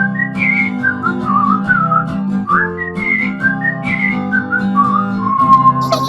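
Instrumental children's song music: a whistled tune over steady backing chords and bass, ending on a long held note.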